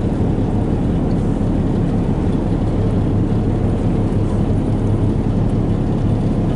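Boat engine running with a steady low drone, unchanging throughout.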